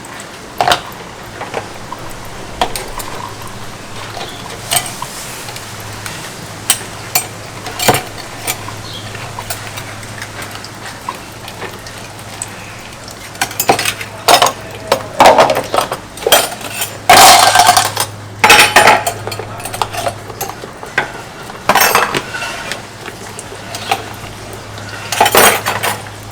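Dishes and cutlery clinking and clattering during washing-up: scattered sharp knocks at first, coming thicker and louder in the second half, with a dense burst of clatter a little past the middle.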